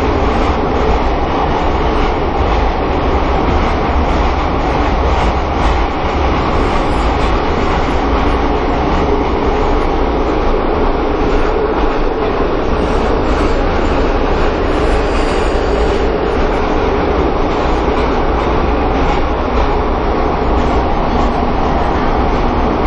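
Metro train running at speed through a tunnel, heard from inside the carriage: a loud, steady rumble that drowns out speech.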